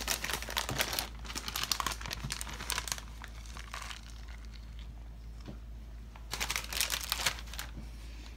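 Plastic bag of shredded mozzarella crinkling as it is handled and the cheese is shaken out. The crinkling comes in two spells: through the first three seconds, then again from about six seconds in.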